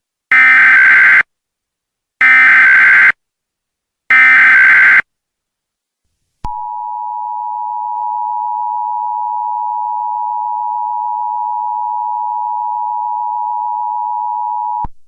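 Emergency Alert System SAME header: three identical bursts of buzzy data tones, each just under a second. After a pause comes the EAS two-tone attention signal, a steady shrill dual tone held for about eight seconds that cuts off abruptly, announcing the alert message to follow.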